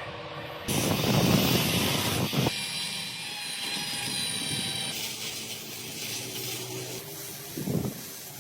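Workshop machinery running, in a few abruptly changing segments: a loud, rough stretch of about two seconds, then a steadier mechanical sound with thin high-pitched whining tones.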